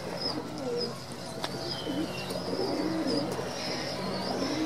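A flock of domestic high-flyer pigeons cooing, many overlapping, wavering coos at once, with a few sharp clicks of beaks pecking grain on concrete and some thin high chirps.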